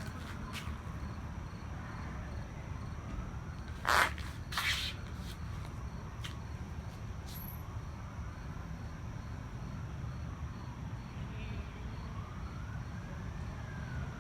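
Distant siren wailing, its pitch slowly rising and falling, over a steady low rumble. Two sharp knocks about four seconds in.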